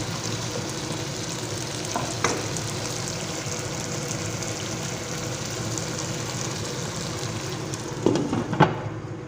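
Chicken pieces with tomato, bell pepper and potato frying in oil in a pot, a steady sizzle while being stirred. A utensil knocks against the pot about two seconds in and a few times near the end.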